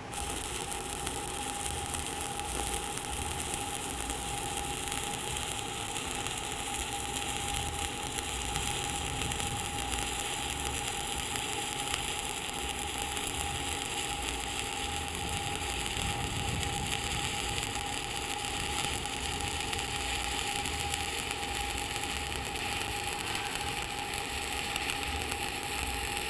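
Stick welding (SMAW) arc from a 7018 electrode laying a cap pass on a steel fillet weld: a steady sizzle with a faint steady whine under it.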